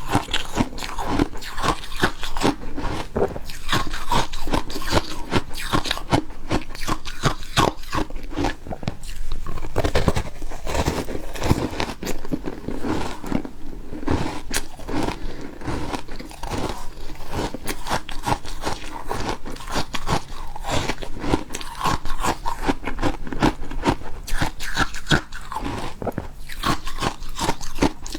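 Close-up crunching and chewing of refrozen ice: many quick, irregular crunches of ice cracking between the teeth.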